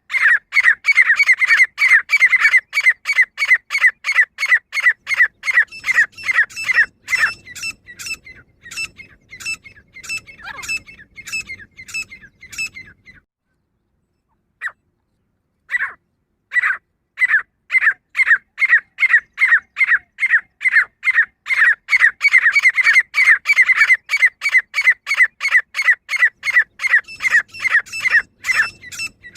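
Female grey francolin calling: a loud, rapid series of sharp, high notes, a few a second. The series fades and breaks off about halfway through, and after a few seconds of silence it resumes at full strength.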